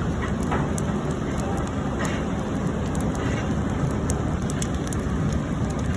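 Fierce wood fire burning inside an incinerator: a steady rushing noise dotted with frequent sharp crackles and pops.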